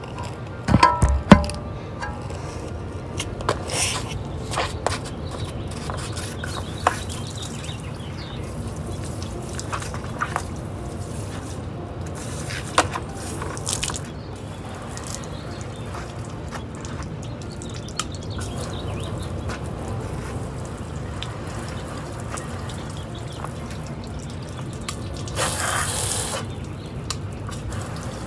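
Water spraying from a garden hose nozzle onto a pickup truck and splashing off onto wet pavement, a steady hiss and patter. A few loud knocks near the start, and a louder burst of spray hiss about 25 seconds in.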